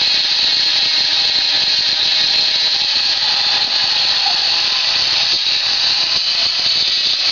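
A 12-volt electric chainsaw sharpener's grinding wheel running and grinding the cutter teeth of a saw chain, a steady high whine.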